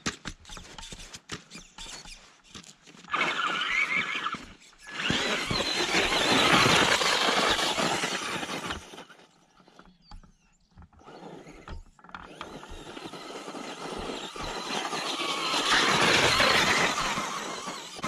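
Traxxas Stampede two-wheel-drive RC truck on a 2S LiPo, its electric motor whining and tyres churning through snow, in two long surges. The first runs from about three to nine seconds in, and the second builds over the last six seconds. There are a few light clicks at the start.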